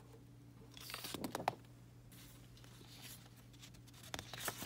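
Paper labels being pulled off a sheet of poster paper, rustling and crinkling in two short bursts, about a second in and again near the end, over a faint steady hum.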